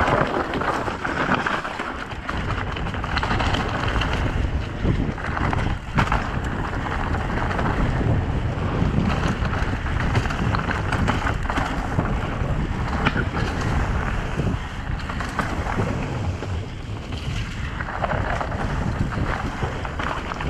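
Mountain bike descending a rocky dirt singletrack: tyres rolling and crunching over stones and dry leaves, the bike rattling, with steady wind buffeting the microphone and a few sharp knocks from the bike over bumps.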